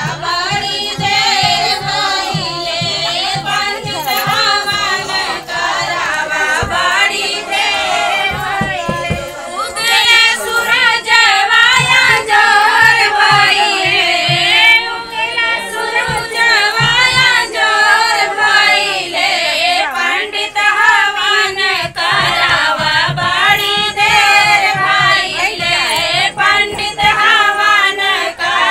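A group of women singing a Hindi devotional havan folk song together, one voice into a microphone, over a low rhythmic beat.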